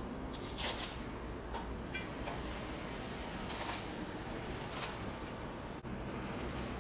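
A kitchen knife cutting through a bunch of fresh cilantro on a cutting board: a handful of short, crisp strokes, unevenly spaced, over a steady low hum.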